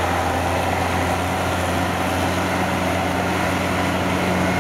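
Diesel engine of a Kubota DC70 combine harvester converted to a crawler rotary tiller, running steadily under load as the tiller churns through wet paddy mud.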